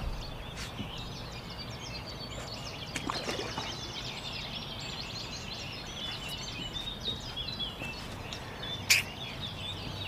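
Dawn birdsong from riverside trees: several small birds chirping and warbling over a low background hum. A single sharp click stands out about nine seconds in.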